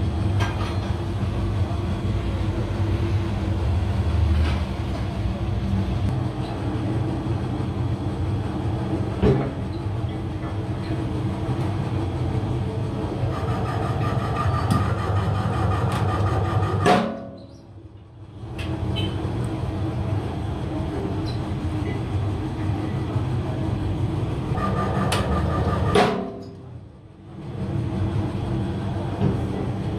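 Steady mechanical drone of a metal-forming press running in a rim-plate workshop, with scattered sharp metallic knocks. Twice, about two-thirds and nine-tenths of the way through, a sharp knock is followed by the sound dropping away for a second or so.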